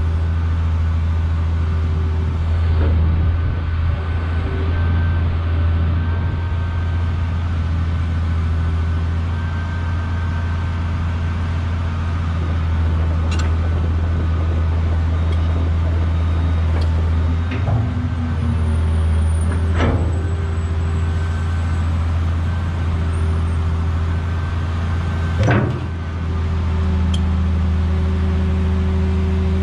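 Caterpillar 345B hydraulic excavator running steadily, a strong low diesel hum with hydraulic whine while the stick and bucket are moved. A few sharp clunks come from the working machine, the loudest two in the second half.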